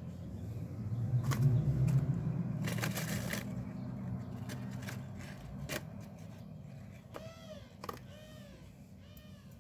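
Wire grabber tongs clicking and a small paper toy bin being lifted and tipped into a paper container, with a short rustle as it empties, over a low vehicle rumble that fades away. Near the end come three short rising-and-falling calls.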